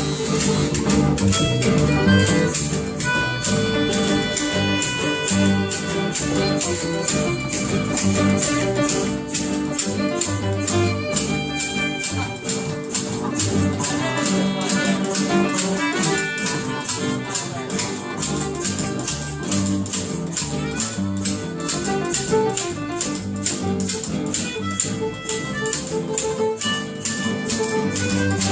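Live acoustic band music: upright bass, violin, guitar and melodica playing held notes over a shaker keeping a steady beat.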